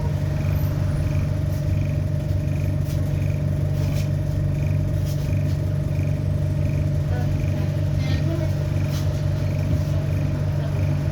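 Interior of an ADL Enviro400 Hybrid double-decker bus on the move: a steady low drone from the drivetrain with a steady whine above it. A short high beep repeats about every 0.7 seconds throughout.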